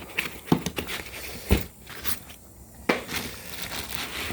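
Packing material and the box being handled during unboxing: crinkling and crunching, broken by several sharp knocks, the loudest about half a second, a second and a half, and three seconds in.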